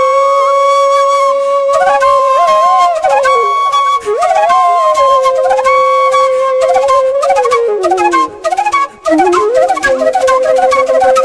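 Background music: a flute playing a slow melody of long held notes linked by sliding ornaments, with a couple of short breaks near the end.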